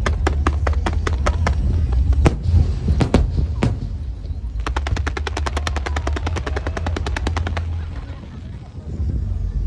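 Firecrackers going off in long strings of rapid, evenly spaced cracks, with a few heavier bangs about two to four seconds in and a faster run of cracks in the middle, over a constant low rumble.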